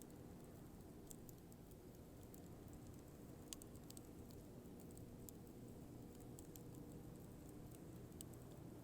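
Burning firewood crackling softly: scattered sharp pops and snaps, the clearest about three and a half seconds in, over a low steady rumble of the fire.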